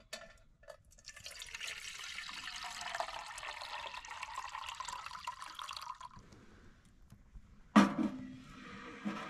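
Water pouring from a stainless steel canteen into a steel cup for about five seconds. Near the end, a sharp metallic clank as the cup is set down on top of a small stainless wood stove.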